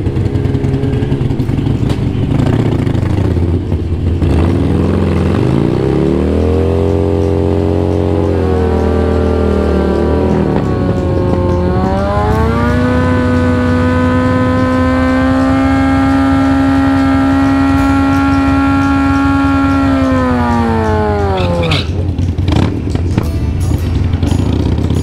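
Sport bike engine revved up and held at high revs for about eight seconds for a burnout, climbing in two steps and then dropping back to idle near the end, with other motorcycles idling underneath.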